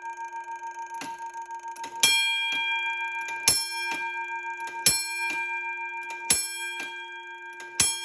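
Holtzer-Cabot fire alarm bell being struck at a slow, even pace, about one stroke every one and a half seconds, ringing on between strokes. A lighter stroke comes about a second in, and a faint click follows each strong stroke.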